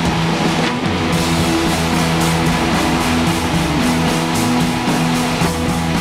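Background music with guitar, in a rock style, with notes changing in steps over a steady beat-free drone.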